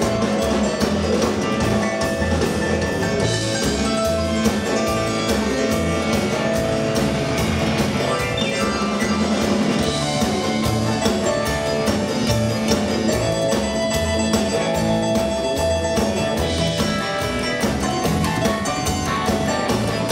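Live rock and roll band playing a stretch with no vocals: electric guitar, keyboard, upright bass and drum kit, with a steady bass pulse.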